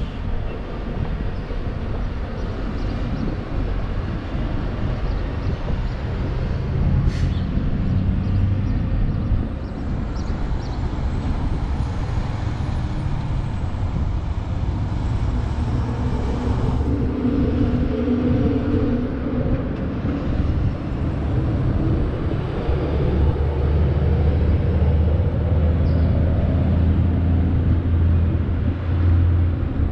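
Low rumbling vehicle-engine noise. A louder, steadier low hum comes in about two-thirds of the way through and stops just before the end.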